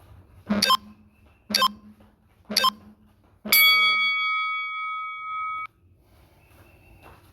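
Workout interval timer counting down: three short beeps a second apart, then one long beep of about two seconds that cuts off sharply, the usual signal that a Tabata work interval starts.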